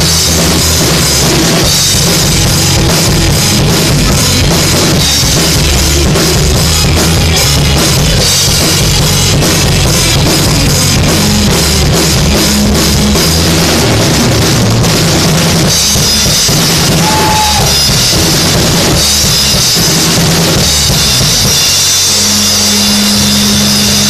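Loud rock music with the drum kit prominent: bass drum, sharp drum hits and cymbals. The cymbals wash more heavily in the second half, and a low note is held near the end.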